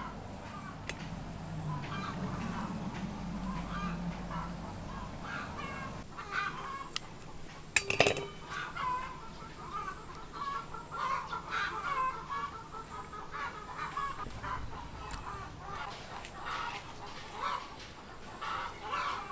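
Chickens clucking repeatedly, with one sharp, louder sound about eight seconds in.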